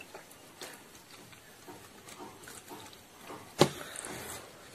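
Close-up eating sounds of spicy instant noodles being slurped and chewed, with soft scattered clicks of a fork in a plastic bowl and one sharp, louder click about three and a half seconds in.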